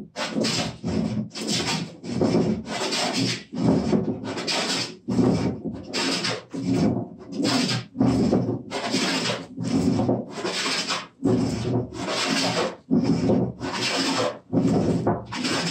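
Wooden hand plane taking quick, repeated shaving strokes across a hardwood workbench top, about three rasping strokes every two seconds. The strokes are taking down the remaining high spots while the top is being flattened.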